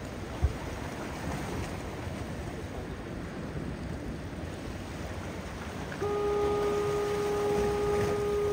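Steady rush of surf and wind, with a brief sharp knock just under half a second in. About six seconds in, a horn sounds one steady blast on a single pitch with overtones, held for about three seconds.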